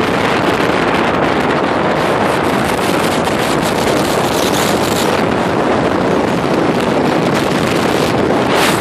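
Loud, steady rush of wind and road noise on the microphone of a car moving at speed.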